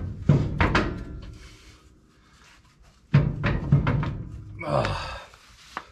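Heavy rear brake drum of a 1986 GMC Sierra 3500 dually being tugged and rocked on the axle, clunking in two bouts of knocks as it hangs up on the brake shoes, most likely on a ridge worn inside the drum.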